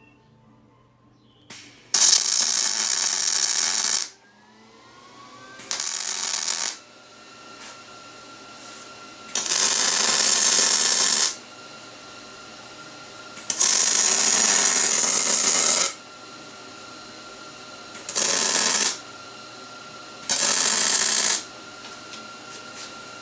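MIG welder striking six short welds, joining steel tubes to a steel base plate: six bursts of arc sizzle, each lasting about one to two seconds, with short pauses between them.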